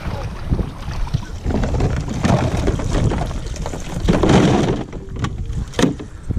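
Wind buffeting the microphone in a low, gusting rumble, with swells of rustling noise and a few sharp clicks near the end.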